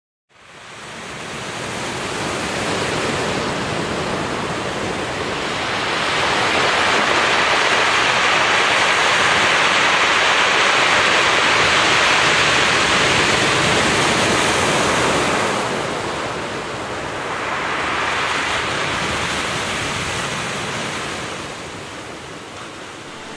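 Ocean surf: waves rushing and washing in. The sound fades in, builds to its loudest through the middle, dips, surges once more, and fades off near the end.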